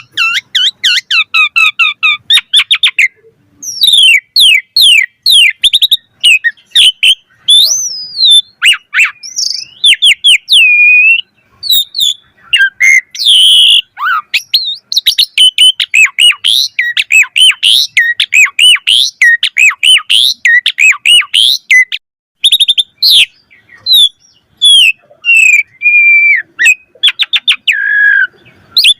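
Asian pied starling (jalak suren) singing a loud, varied song: fast strings of sharp chattering notes mixed with whistled glides and squeaky calls, broken by a few brief pauses.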